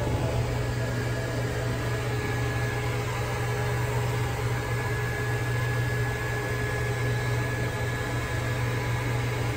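Hose-type dog grooming blow dryer running steadily: a low motor hum under a rush of air from the nozzle, blowing through the dog's coat.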